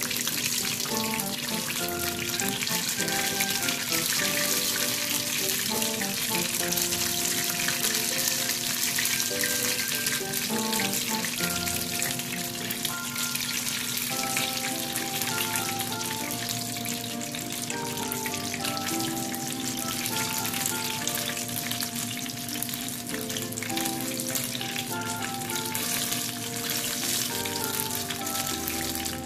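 Besan-battered paneer and fenugreek pakoras deep-frying in a small pan of hot oil, a steady dense sizzle and crackle, with background music playing over it.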